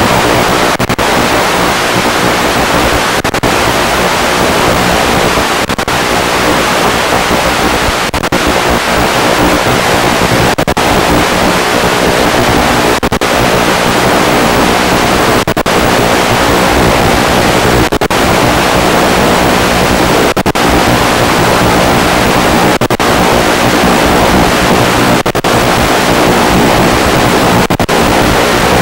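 Loud, steady rushing noise with a faint hum in it, broken by very brief dropouts about every two and a half seconds.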